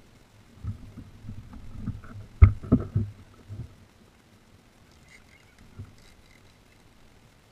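A run of low knocks and thumps on the plastic kayak hull, carried straight to the hull-mounted camera, loudest about two and a half seconds in, then only a few faint clicks.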